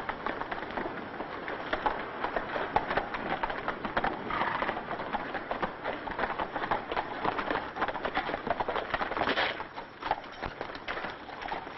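Several horses galloping: a rapid, continuous clatter of hoofbeats.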